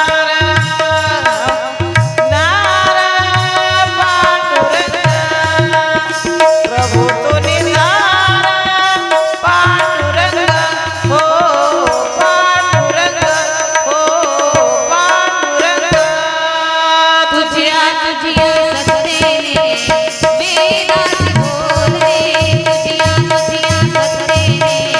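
Women singing a Marathi abhang, a devotional song, into microphones, accompanied by drum strokes in a steady rhythm and a steady held drone note underneath.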